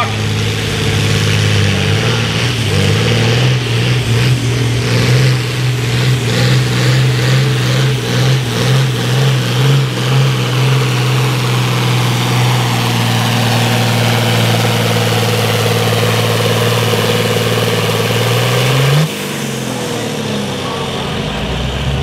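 John Deere 4040 pulling tractor's six-cylinder diesel engine running hard under load as it drags a weight-transfer sled, a steady, loud engine note. Near the end the pitch flares upward, then the engine drops back to a quieter, lower note as the throttle comes off.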